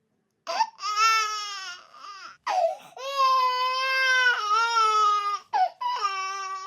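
Child crying: a string of drawn-out, high-pitched wails with short catches of breath between them, the longest about three seconds.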